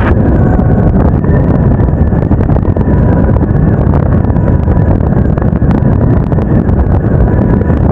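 Motorcycle on the move at road speed: steady wind buffeting on the camera microphone over the engine and road noise.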